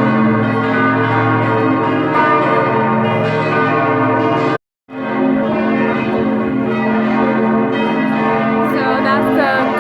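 Church bells ringing together in a sustained, overlapping peal, cut off briefly by a short dropout about halfway through.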